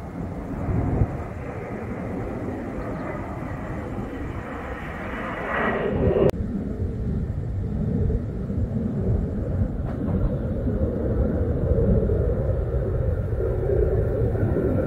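Jet engine rumble from a formation of three F-35 fighter jets passing overhead. A rushing noise swells about five seconds in and breaks off abruptly at an edit, after which the rumble grows slightly louder.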